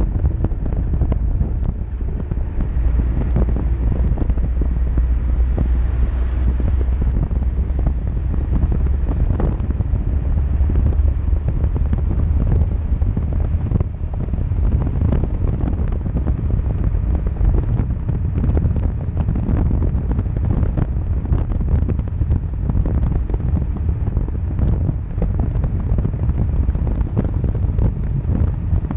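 Wind buffeting the microphone of a camera mounted on the outside of a moving classic Mercedes-Benz, over the car's steady low rumble as it drives along.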